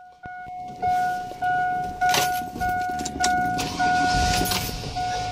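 Pickup truck's dashboard warning chime on a 2002 GMC Sierra Denali, a single-pitched tone repeating steadily about every 0.6 seconds. Brief rustling and knocks break in a few times, loudest near the end.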